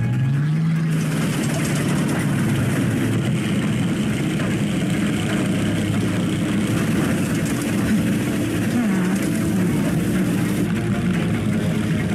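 Soundtrack of an example film or game scene: a steady engine-like drone made of layered sound effects, with a low tone gliding up in pitch at the start.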